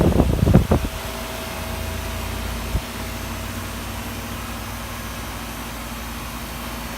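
Carrier 3.5-ton central air conditioner's outdoor unit running steadily, compressor and condenser fan humming, on its first startup after sitting unused; the compressor is still running a little rough before smoothing out. A few loud, uneven bursts in the first second and a single short knock about three seconds in.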